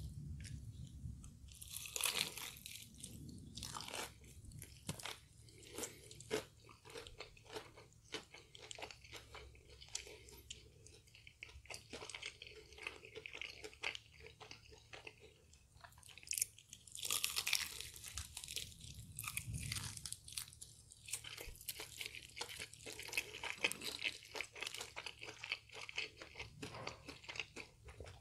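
Close-up crunching and chewing of crispy fried chicken, with louder crunchy bites about 2 and 17 seconds in.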